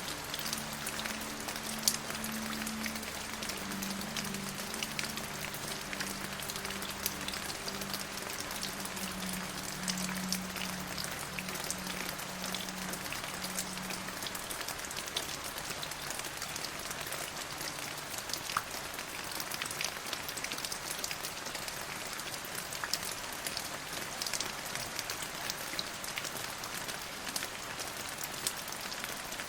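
Steady rain falling, with many distinct drop hits over an even hiss. A faint low hum of a few steady tones underlies the first half and fades out about halfway through.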